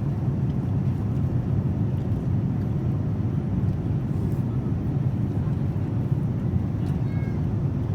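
Steady low rumble of a Boeing 787-9 airliner's cabin in cruise flight, the constant engine and airflow noise heard from an economy seat. A faint, brief high two-note tone sounds about seven seconds in.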